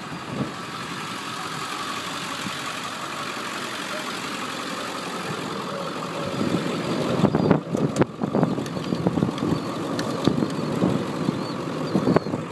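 2001 Ford F-350's 7.3-litre Power Stroke V8 turbo-diesel idling steadily while running dual-fuel on diesel and natural gas. It grows louder about six seconds in, with several sharp knocks and clatters soon after.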